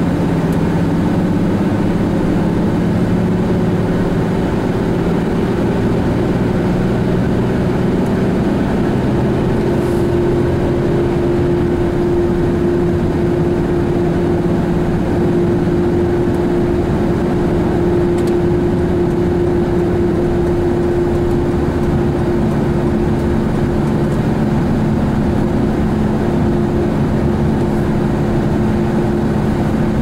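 Steady engine and road noise heard from inside a vehicle driving at an even speed, with a constant low hum.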